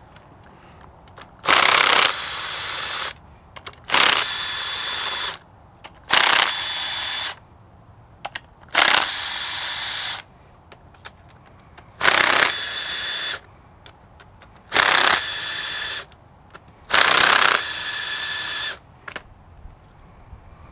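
Cordless power driver with a long bit backing out the crankcase bolts of a GY6 scooter engine. It runs in seven short bursts about two and a half seconds apart, each loudest at the start and then running on steadily for about a second before stopping.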